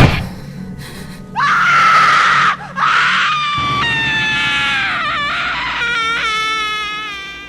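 A scream in two parts: a short high cry, then a long held scream that wavers in pitch and fades out, over a low steady drone.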